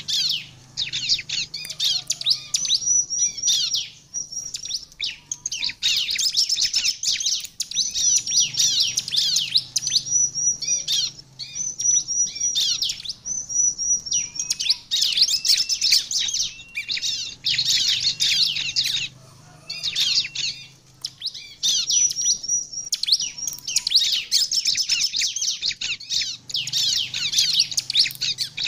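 Bar-winged prinia (ciblek) singing hard: rapid, high-pitched chattering song in bouts of a few seconds with short pauses between them, some bouts made of runs of short, level whistled notes.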